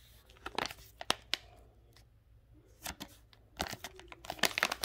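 Plastic dog-treat pouch being torn open and handled: a few sharp rips and crinkles, then a dense run of crackling near the end.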